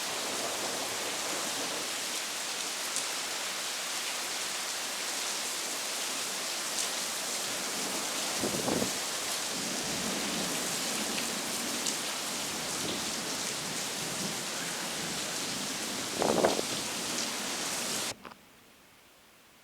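Heavy rain falling steadily, a dense hiss with scattered drip ticks. There are two brief louder splashes, one about halfway through and one near the end, and then the rain sound cuts off abruptly.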